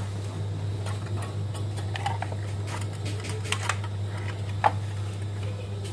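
Scattered light clicks and taps as an LED floodlight's metal housing and paper reflector lining are handled, the sharpest about four and a half seconds in, over a steady low hum.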